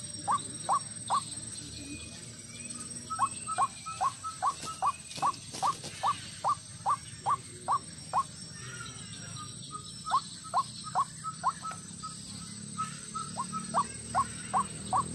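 White-breasted waterhen (ruak-ruak) calling: a long series of short, repeated notes at about two to three a second, broken by a few brief pauses. It is a lure recording used to draw the birds in.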